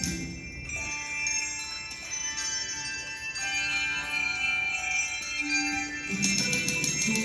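Instrumental music with ringing, bell-like sustained notes; about six seconds in, quick tapping strokes and a stronger rhythmic bass line come in.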